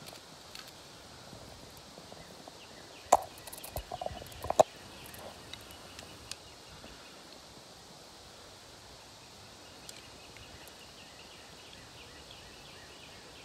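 Dry grass and leaf litter rustling, with a short cluster of sharp knocks about three to four and a half seconds in, as an arrow tipped with a Bull Head broadhead is worked free of the dirt by hand. Otherwise only a faint steady background.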